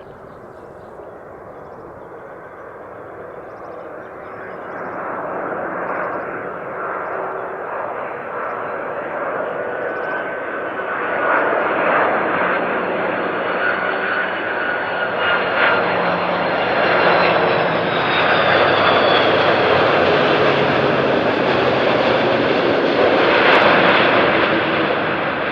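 Airbus A330 jet engines on a landing approach, a steady jet noise with a high engine whine, growing steadily louder as the airliner comes closer.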